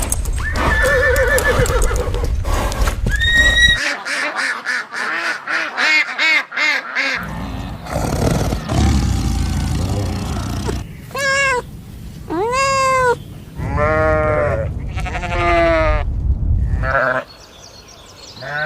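Livestock bleating: a series of short, wavering calls, several of them close together in the second half, with the background sound changing abruptly between spliced clips.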